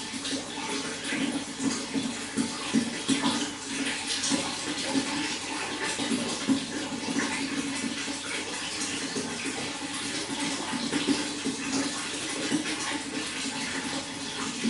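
Running water flowing and splashing steadily, with a continuous gurgle.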